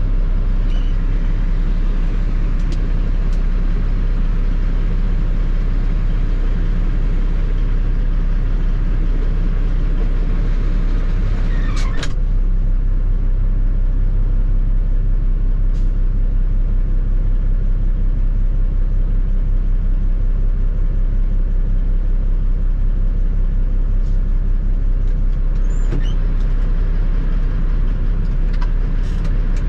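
A tri-axle dump truck's diesel engine idling steadily. There is one sharp click about halfway through.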